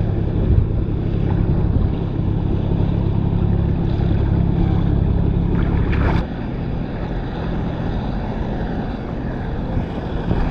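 Inboard motor of a passing tour boat running steadily, a low drone over lapping water. A sharp knock comes about six seconds in, and the drone is quieter after it.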